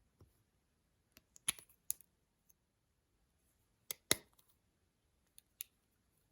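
Sharp clicks and snaps, mostly in close pairs: two about one and a half and two seconds in, the loudest pair about four seconds in, and a fainter pair near the end.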